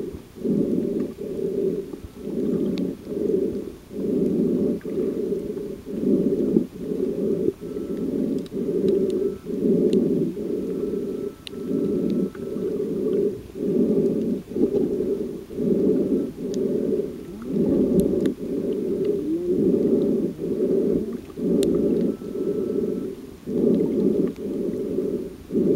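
Muffled underwater noise picked up by a submerged camera: a dull pulsing that repeats about one and a half times a second, with a few faint sharp clicks.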